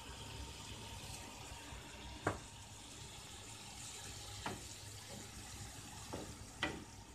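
Grated zucchini and garlic softly sizzling and bubbling in oil and their own released juice in a frying pan. Three short knocks come as the mixture is stirred with a wooden spoon.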